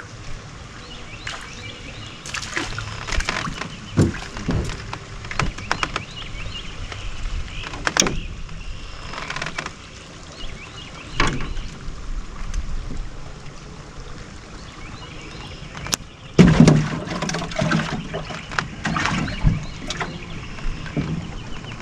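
Handling noise in a small fishing boat as a bream is landed and unhooked: scattered clicks, knocks and rattles against the boat, with the loudest knock about sixteen and a half seconds in.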